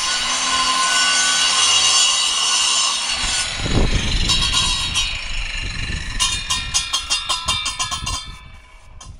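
A power tool starting abruptly and running under load: a harsh, high-pitched cutting or grinding noise with a steady whine, loudest for the first few seconds. About six seconds in it turns to a fast rattle before dying away.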